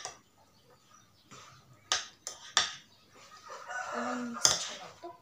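Sharp clicks of chopsticks and noodle-eating noises, then a drawn-out pitched call about a second long near the end, cut off by a sharp click.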